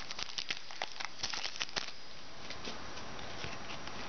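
Football trading cards being handled and flipped through by hand: quick clicks and rustles, thick for the first two seconds, then sparser.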